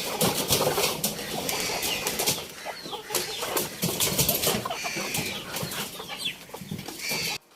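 Chickens clucking amid many short sharp knocks and rustles from the flock. The sound cuts off abruptly near the end.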